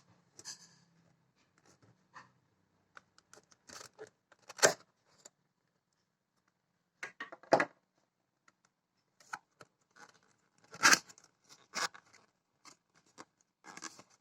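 Packaging being opened and handled: scattered rustling, scraping and tearing, with a few louder sharp snaps, the loudest about four and a half seconds and eleven seconds in.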